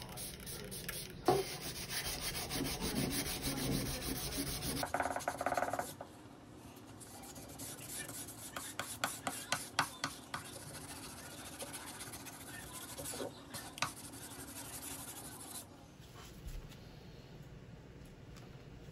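Abrasive hand rubbing on the steel of a vintage draw knife: about five seconds of continuous scrubbing, then a run of shorter, separate strokes with light clicks, dying down near the end.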